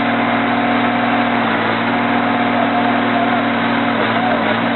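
Heavy truck engine running steadily, a constant low drone with a thin steady whine over it.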